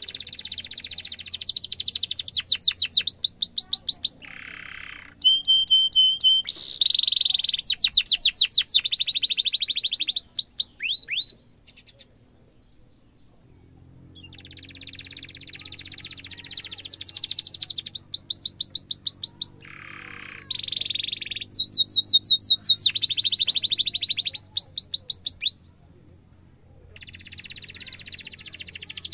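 Domestic canary singing in long phrases of fast rolling trills and rapidly repeated sweeping notes. The song breaks off twice, near the middle and about three quarters through, before starting again.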